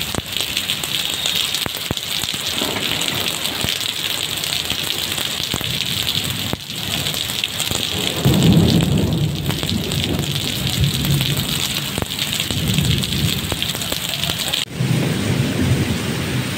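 Heavy rain pouring onto pavement and parked vehicles, a steady loud hiss, with a low rumble setting in about eight seconds in and again near the end. The sound changes abruptly twice.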